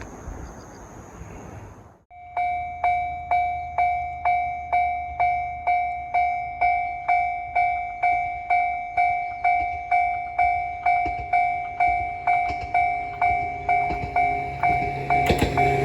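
Japanese level-crossing warning bell ringing steadily at about two strikes a second, each strike fading, starting abruptly about two seconds in after a stretch of wind noise. Near the end the running noise of an approaching train rises under it.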